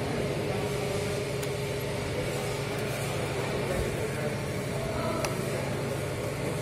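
Steady low mechanical hum, unchanging throughout, with a couple of faint short ticks.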